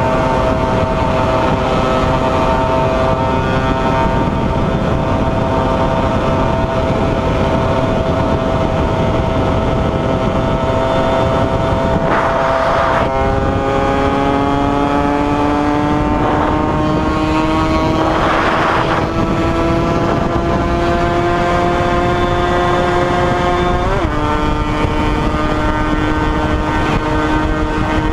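Yamaha RD135 single-cylinder two-stroke motorcycle engine running at sustained high revs at highway speed, its note climbing slowly. The pitch jumps and drops sharply about 24 seconds in. Heavy wind rush runs throughout, with two brief louder gusts partway through.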